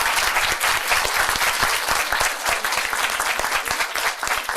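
Audience applauding: many people clapping together, loud and steady, easing off slightly toward the end.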